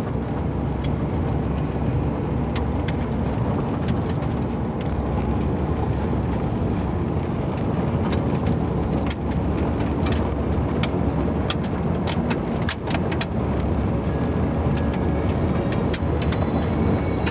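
Car driving on a dirt road, heard from inside the cabin: a steady low rumble of tyres and engine, with scattered sharp ticks throughout.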